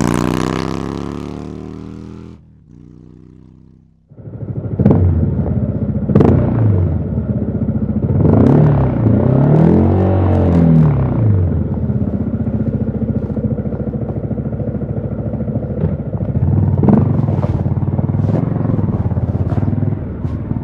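Yamaha XSR155's single-cylinder 155 cc engine through a DIY exhaust, riding. The revs fall away at first and there is a short low lull. Then the engine pulls away with revs rising and falling a few times midway, and settles to steady cruising.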